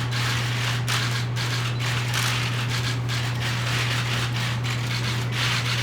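Camera shutters of several photographers clicking in fast, overlapping bursts, over a steady low hum.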